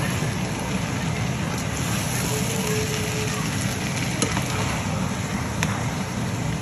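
Food frying in hot oil: a steady sizzle over a low rumble, with two sharp clicks, one past the middle and one later.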